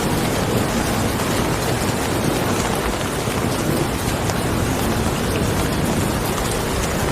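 Steady rain falling evenly, a dense hiss of drops.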